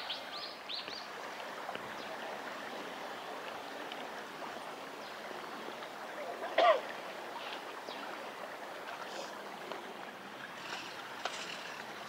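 A shallow stream runs steadily over stones. There is a quick run of short, high, falling bird chirps right at the start, and one brief, much louder pitched call about six and a half seconds in.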